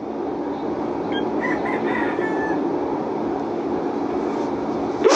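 A steady noise with a low hum runs throughout and stops suddenly at the end. A rooster crows faintly about a second in.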